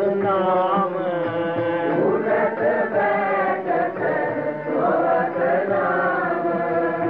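Gurbani kirtan: a voice singing long, drawn-out, wavering notes of a shabad line, over a steady instrumental accompaniment.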